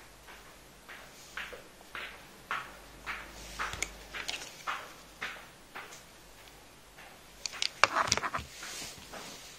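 Hands handling a crocheted yarn bag: soft rubbing strokes about twice a second, then a quick run of taps and clicks near the end.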